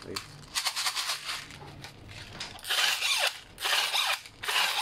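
Airsoft rifle magazine being wound at its winding wheel: ratcheting clicks, with scattered clicks at first and then a run of rhythmic winding strokes about once every 0.8 s from about halfway in, tensioning the feed spring after loading BBs.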